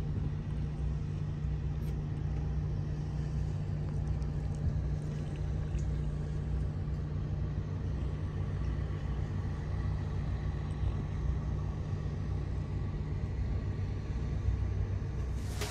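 Steady low rumble with a constant hum, the machinery of a cruise ship heard from its open deck.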